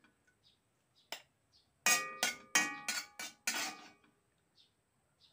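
Metal spatula scraping and clanking against a stainless steel wok while cooked greens are scooped out onto a plate. There is a single click about a second in, then a quick run of about six ringing metallic strikes in the middle.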